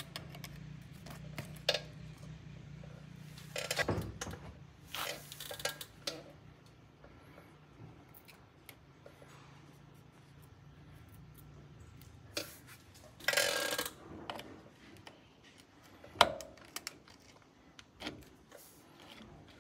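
Needle-nose pliers and the steel parts of an automatic 4x4 locking hub being worked apart: scattered light metal clicks and clinks, with a few brief scraping rattles as parts slide. A low steady hum sits underneath for about the first half.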